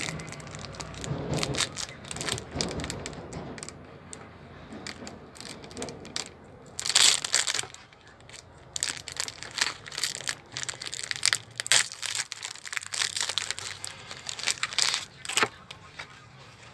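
Foil Pokémon card booster pack crinkling and tearing as it is ripped open by hand, with many sharp crackles and the loudest burst about seven seconds in; then the cards are slid out of the crinkling wrapper.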